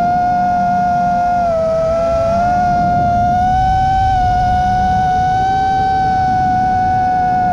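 5-inch FPV quadcopter's motors and three-blade props whining at a steady pitch, dipping slightly about one and a half seconds in and then climbing back, with a rushing noise underneath, heard from the camera mounted on the drone.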